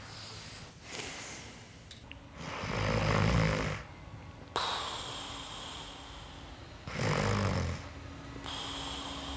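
A man snoring: two long snores, the second about four seconds after the first.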